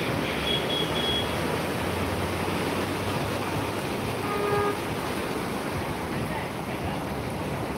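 Muddy floodwater rushing steadily across a road. A short tone sounds briefly about four and a half seconds in.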